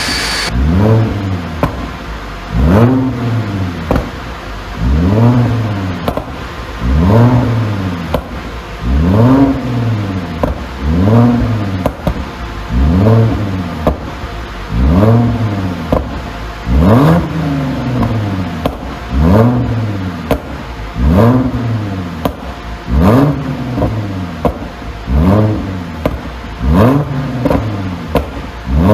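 2012 Audi A6 3.0 TFSI's supercharged V6 through a custom exhaust, blipped repeatedly about every two seconds, the revs rising and falling back each time. Sharp pops and crackles come on the falling revs, the sound of an ECU pop tune.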